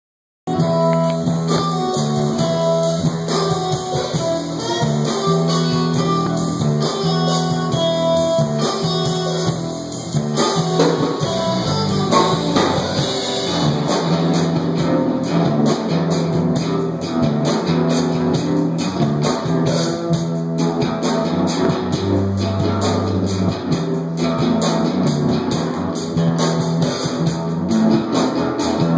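Music led by guitar with a drum kit, starting about half a second in and running at a steady level.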